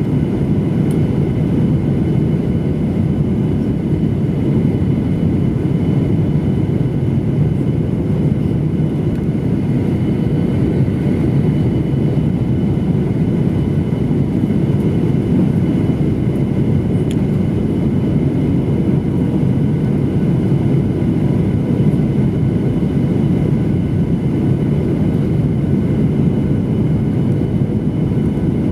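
Steady drone of a jet airliner on its landing approach: an even rumble of engines and airflow with faint high whining tones above it.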